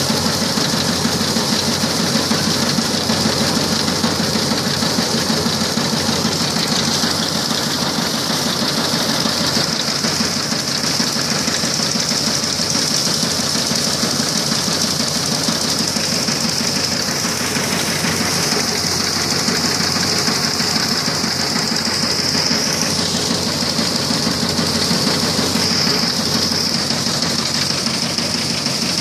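Multicrop thresher driven by a 5 HP diesel engine, running steadily: the engine's rapid knocking mixed with the whirr and clatter of the threshing drum.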